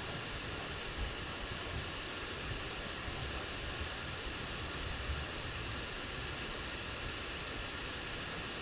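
Wind blowing across the microphone: a steady rushing hiss with uneven low buffeting and a couple of small bumps.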